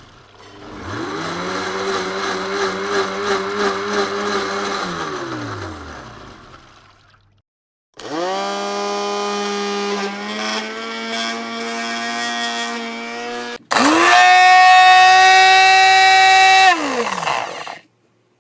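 Electric blender motor running in three separate runs. The first spins up about a second in, holds a steady pitch and winds down. After a short silence, the second starts abruptly and runs steadily, and the third, the loudest, starts suddenly and winds down near the end.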